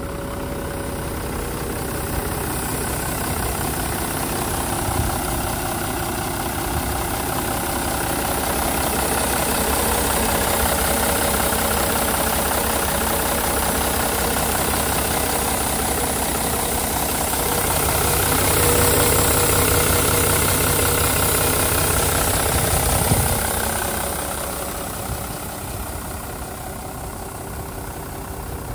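Mitsubishi 6D15 turbo-diesel inline-six idling steadily, heard from the open rear engine compartment. It grows louder through the middle as the microphone nears the engine and fades again near the end.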